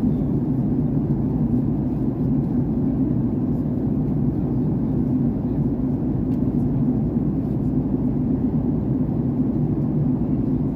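Steady low rumble inside the cabin of a Boeing 737 airliner in flight: engine and airflow noise heard from a window seat over the wing.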